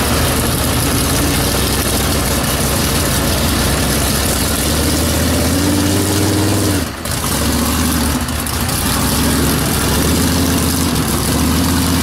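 Big-block Ford V8 of a lifted mud truck running over a steady hiss. It revs up with a rising pitch about six seconds in, breaks off briefly, then carries on at a steady lower run.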